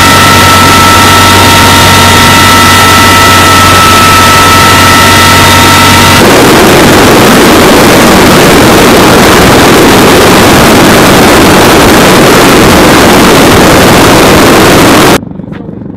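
Loud helicopter noise. In the first six seconds it is the steady din of turbines and rotor inside a helicopter's cabin in flight, with several steady high whining tones. It then changes abruptly to the rushing roar of a CH-53E Super Stallion's turbines and rotor wash close beside the turning helicopter on the ground, which cuts off sharply near the end.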